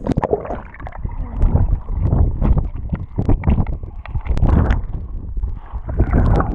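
Lake water splashing and sloshing around a camera dipped in and out of the surface, heard as loud, muffled rumbling with many quick clicks and pops.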